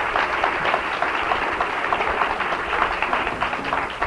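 Audience applauding: dense, steady clapping on an old reel-to-reel tape recording of a live show.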